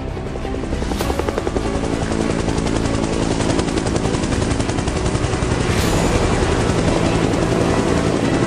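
Police helicopter hovering close by, its rotor blades chopping fast and evenly, growing louder about a second in. Background music continues underneath.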